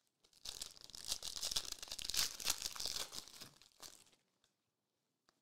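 Foil wrapper of a Prizm World Cup trading-card pack crinkling as it is torn open, from about half a second in to about three and a half seconds, followed by a few faint clicks as the cards come out.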